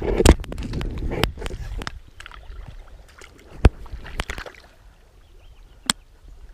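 Handling and movement noise on a muddy, waterlogged bank: splashing, sloshing steps and knocks of fishing gear, busiest in the first two seconds, then quieter, with two sharp clicks later on.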